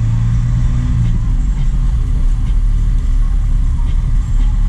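Truck engine running under way with a steady low drone, and a held engine tone in the first second that then fades back into the drone.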